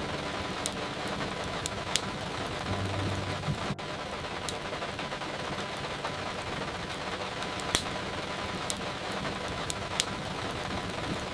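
Steady rain with now and then a single sharp crackle or pop from a fire, about half a dozen in all.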